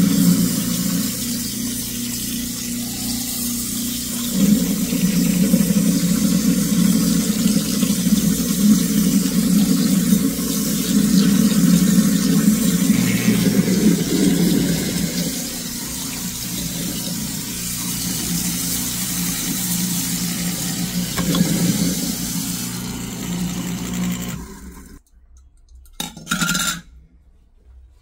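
Kitchen faucet running a steady stream into the sink drain and over the garbage disposal tablet's foam, with a steady low hum underneath. The water cuts off about 25 seconds in, followed by one short clatter.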